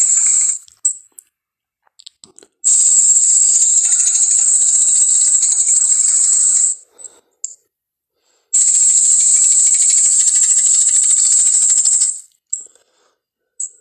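Fan-made Indoraptor creature sound effect: a rattling hiss in long bursts of about four seconds, with faint clicks in the short silent gaps between them.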